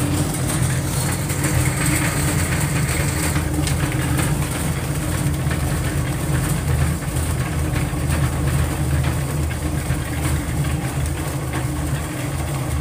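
Portable concrete mixer's motor running steadily while its tilted drum turns, tipping wet concrete mix out into a pan, with a constant low hum.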